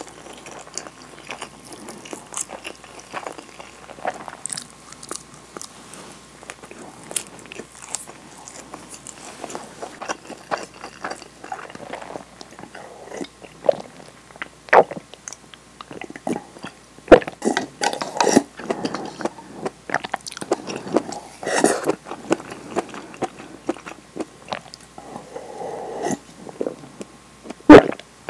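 Close-miked eating sounds: chewing a nori-wrapped rice ball with wet mouth clicks, then sipping and swallowing from a soup bowl. Irregular clicks run throughout, with louder bunches of sips and gulps in the second half.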